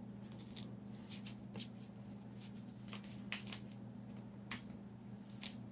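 Faint, irregular small clicks and scrapes of a plastic cleaning tool's pick working hair residue off a Roborock S5 Max robot vacuum's main roller brush.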